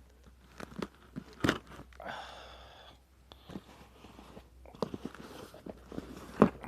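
A shipping package being opened by hand: crinkling and tearing of packaging with scattered clicks and knocks, a rustle about two seconds in, and a sharp knock near the end.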